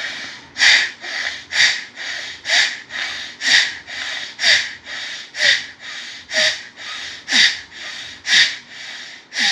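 Forceful bellows breathing in bhastrika pranayama through the left nostril alone: ten quick breath cycles, about one a second, each a hissing sniff in and a stronger blast out through the nose.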